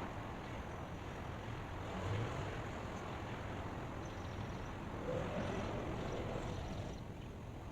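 Steady outdoor ambient noise: a low rumble under an even hiss, with small swells in level, like wind and distant engine or surf noise.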